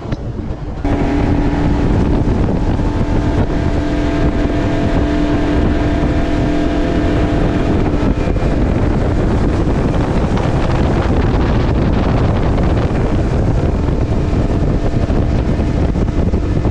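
Outboard motor driving a boat at speed, a steady engine hum under the rush of wind and spray, with wind buffeting the microphone. It gets louder suddenly about a second in; the engine's tone stands out in the first half and is then mostly covered by the wind and water.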